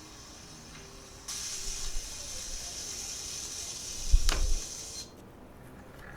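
A steady hiss lasting about four seconds, with a sharp knock near its end.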